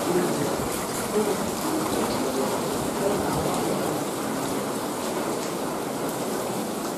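Steady rush of water running over the wet stone floor and rocks of a cave, with faint voices of people talking.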